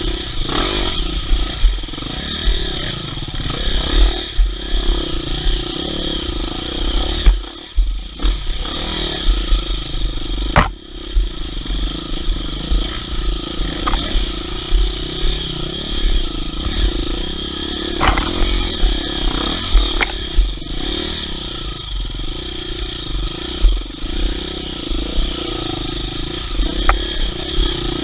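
Off-road enduro motorcycle engine running while being ridden over a rough trail, with the clatter of the bike and a few sharp knocks.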